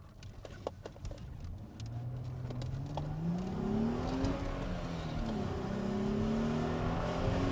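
Chrysler Crossfire's V6 engine heard from inside the cabin as the car pulls away. The revs climb steadily for a couple of seconds, drop at an upshift about halfway through, then climb again, the engine getting louder as it goes.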